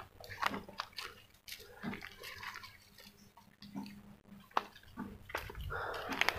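Footsteps crunching and rustling through dry cut grass and twigs, as short uneven crackles.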